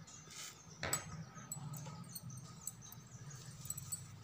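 Faint room tone with a low steady hum, one sharp click about a second in and a few small scattered ticks, as from light handling of a pen and paper.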